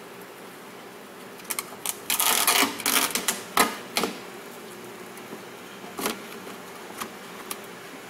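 Plastic vapor barrier being peeled off a car door's inner panel: a dense run of crackling and crinkling from about a second and a half in until about four seconds, then a few lone crackles.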